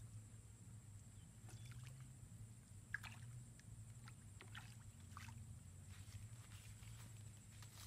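Faint water splashes and slurps as a fish swirls at the surface of the pond: a few short splashes, the sharpest about three seconds in, over a low steady hum.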